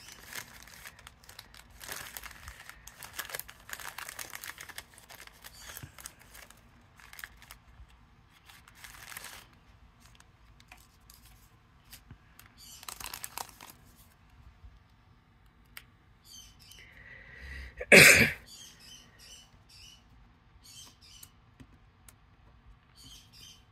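Die-cut paper pieces and cellophane packets rustling and crinkling as they are handled and sorted, in scattered short bursts with light clicks. One much louder, brief rustle about eighteen seconds in.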